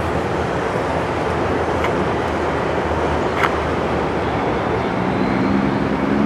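Steady freeway traffic noise, a dense rumble with a few faint ticks.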